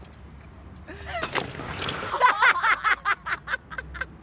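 A person's loud voice starting about a second in and breaking into a run of quick, pitched bursts, about four or five a second, that fade away near the end.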